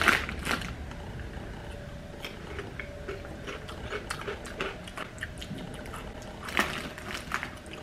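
Potato crisps being chewed, small crunches scattered throughout, with a louder crackle near the end.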